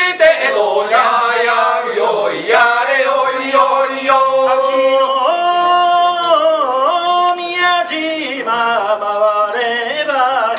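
A small group of men singing a traditional Japanese chant together in unison, with long drawn-out held notes.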